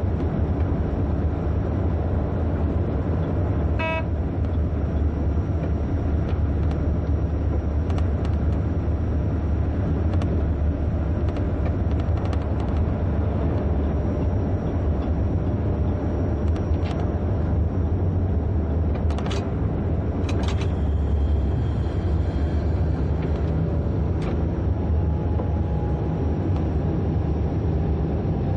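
Train running along the track, heard from the driver's cab: a steady low rumble with scattered clicks and knocks from the wheels, several of them close together around twenty seconds in, and a very short tone about four seconds in.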